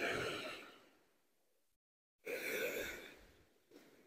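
Rough lake surf breaking on a sand beach: three surges of rushing water, each starting suddenly and fading away, about two seconds apart.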